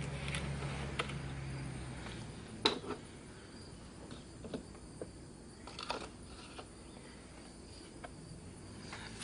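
Quiet outdoor background with a few light clicks and knocks, the sharpest a little under three seconds in; a low hum fades away over the first two seconds.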